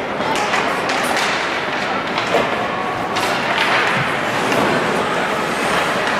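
Ice hockey game in an indoor rink: a steady wash of crowd and skate noise, scattered sharp knocks of sticks and puck, and a few brief shouted voices.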